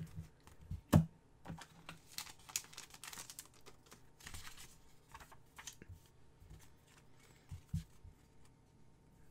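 Trading cards and a paper sheet being handled by hand: soft rustling of paper and small clicks of card stock, with one sharper tap about a second in.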